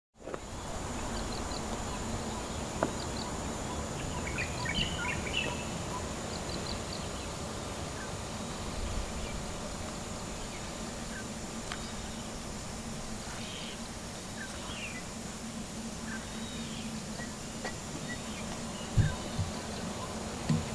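Outdoor riverside ambience: scattered bird chirps over a steady background hiss and a thin, steady high-pitched whine, with a few knocks near the end.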